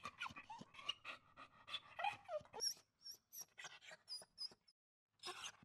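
Faint dog panting in quick short breaths, with a few brief whimpers and some high thin squeaks in the middle.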